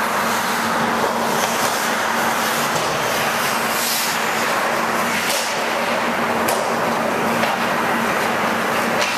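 Ice-hockey practice on a rink: skate blades scraping and carving on the ice, with a brighter hiss of a hard skating stop about four seconds in, and sharp clacks of sticks on the puck a couple of times near the end, over a steady low hum.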